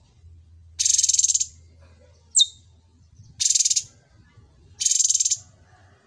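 Cucak cungkok songbird giving three loud, harsh, buzzy chattering phrases, each about half a second long and spaced over a second apart, with one short, sharp downward-sliding whistle between the first two.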